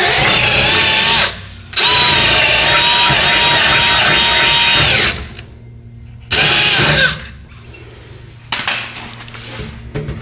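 Cordless drill with a gold-coloured bit drilling a mounting hole at the lower edge of a pickup's front bumper, opened up with a larger bit because a quarter-inch hole was too small. It runs in three bursts: one stopping about a second in, a long one of about three seconds with the motor's whine wavering under load, and a short one around six seconds in, followed by light clicking.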